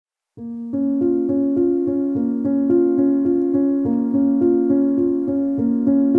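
Background music, a quick repeating pattern of notes at about four a second, starting after a brief silence about half a second in.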